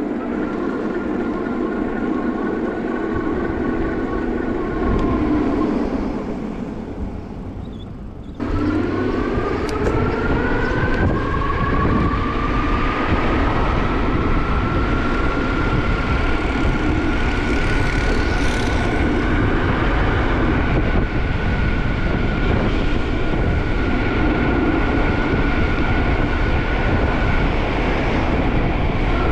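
Hub motor of a Juiced HyperScrambler 2 e-bike whining under a low rumble of riding noise. The whine sinks and fades as the bike slows. About eight seconds in the motor cuts back in and the whine rises in pitch as the bike picks up speed, then holds steady.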